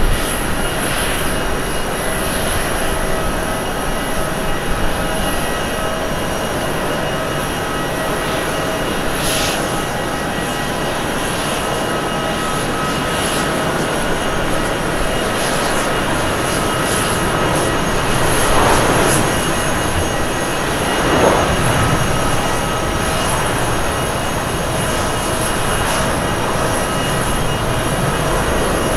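Twin-engine Airbus A330 jet airliner on its takeoff roll, its engines running at takeoff power with a steady jet noise that swells twice about two-thirds of the way through.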